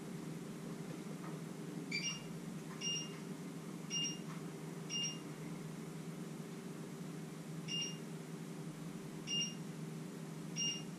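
A kitchen appliance's control panel beeping at button presses: seven short, high electronic beeps at uneven intervals, over a steady low hum.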